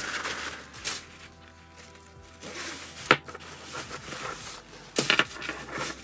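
A rhinestone mesh purse being handled, its rhinestones rustling, with sharp clinks about a second in, about three seconds in and again near the end, over faint background music.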